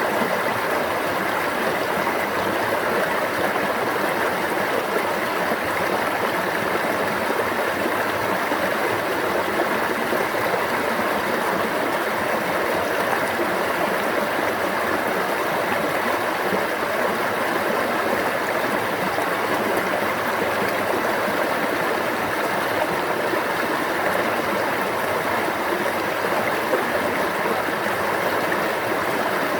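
A stream flowing steadily: an even, unbroken rush of water.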